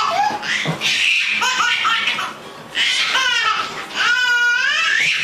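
A small child laughing in high-pitched, squealing bursts, about four of them, with the pitch rising and falling.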